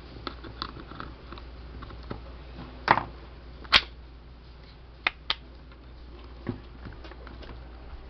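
Scattered clicks and knocks of hard plastic fan motor housing parts being handled and fitted back over the motor, the loudest two about three and almost four seconds in, then a quick pair about five seconds in.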